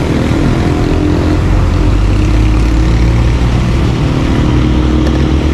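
Motorcycle engine running steadily while riding slowly through standing floodwater on a street, with a heavy low rumble throughout.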